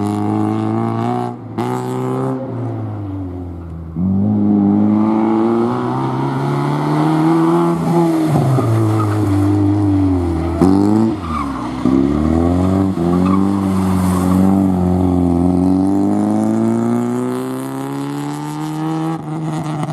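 A car engine revving hard through a gymkhana course, its pitch climbing and falling again and again as it accelerates, lifts off and shifts, with tyres skidding and squealing in the tight turns.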